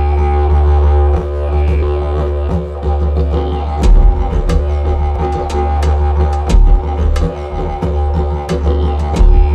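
Background music: a deep, steady drone under held tones, with sharp percussive hits coming in about four seconds in.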